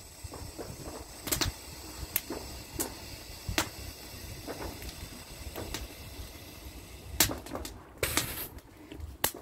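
Bonfire wood crackling, with sharp single pops every second or so and a brief hiss near the end.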